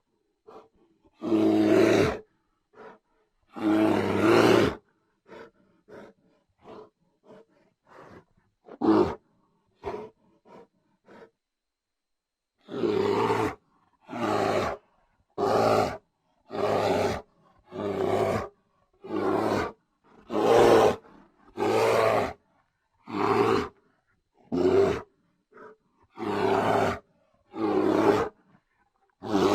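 Bear roaring: two long roars near the start, a few faint short grunts, then from about halfway a regular string of short roars, about one a second.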